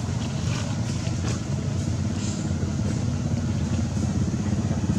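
A motor engine running steadily with a low rumble.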